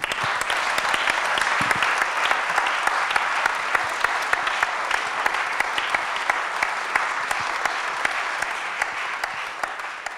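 Audience applauding at the close of a talk: a steady, dense patter of many hands clapping that fades out near the end.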